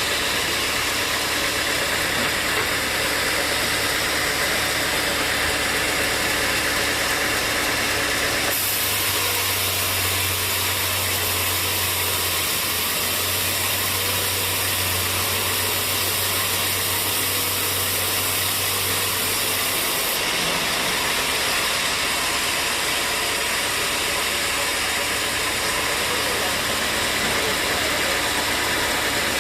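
Sawmill machinery running steadily, an engine-like drone over a constant noisy hiss. The sound changes abruptly about eight seconds in, when a low hum comes in, and again about twenty seconds in, when the hum drops away.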